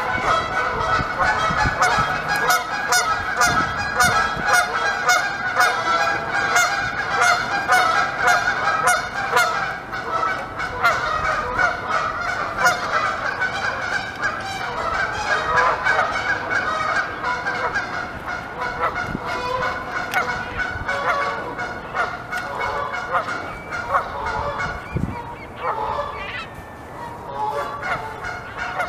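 A flock of geese honking continuously, many calls overlapping. Through it come crisp repeated clicks of beavers gnawing bark off a log, thickest in the first ten seconds or so.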